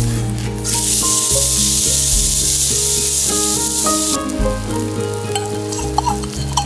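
Food frying and sizzling in a pan, loud for about three and a half seconds and then dropping to scattered faint crackles, over background music.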